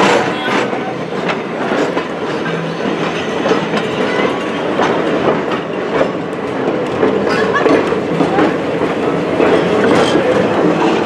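Passenger cars of a train rolling past close by, their steel wheels clattering on the rails over a steady rumble.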